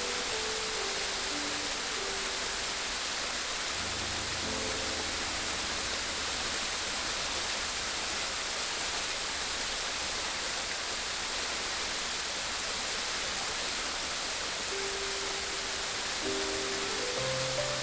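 Steady rushing of flowing water, like a stream or small waterfall, with soft held music notes layered over it near the start, briefly about four seconds in, and again near the end.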